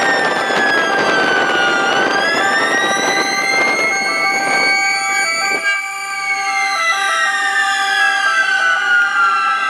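Several ambulance sirens sounding together: one slow wailing siren glides down, rises over a few seconds, then falls again, over two-tone sirens stepping back and forth between steady pitches. A hiss under the sirens cuts off about halfway through.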